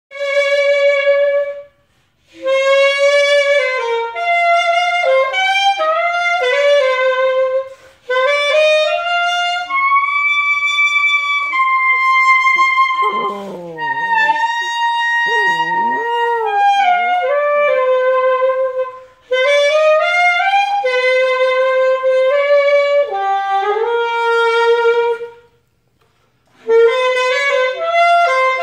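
Saxophone playing a slow melody in held notes, in phrases broken by short pauses. About halfway through, a poodle puppy howls along, its voice gliding down and back up in pitch under the saxophone.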